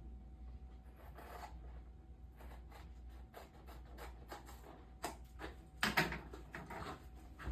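Rustling and scratching with scattered small clicks from a hair-system template being handled and cut, with a louder click about six seconds in.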